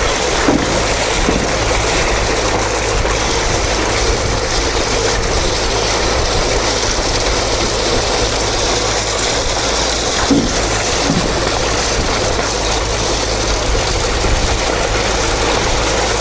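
Heavy construction machinery engine running steadily, with a faint hum and a couple of light knocks about half a second and ten seconds in.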